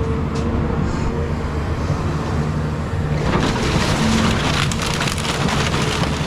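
Caterpillar 323 excavator's diesel engine running steadily under load, with a steady hydraulic whine. From about three seconds in, crunching and clattering of demolition debris grows louder over the engine.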